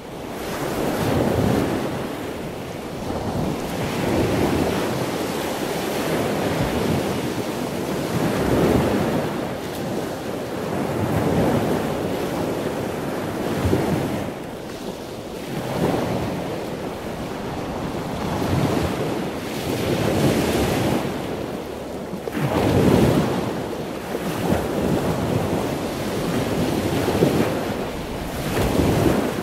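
Wind buffeting the microphone over a choppy sea, with waves sloshing and splashing by the boat, the rush swelling and easing every few seconds.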